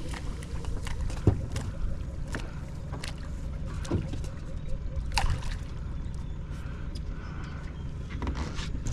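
Small fishing boat idling on the water: a steady low rumble, with a few sharp knocks on the boat, the loudest about a second in.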